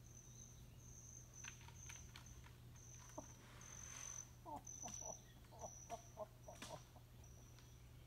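Faint scratches and clicks of a bear's claws on aspen bark as it climbs the trunk, with a cluster of short squeaks in the middle. A thin high note repeats over and over, less than a second apart.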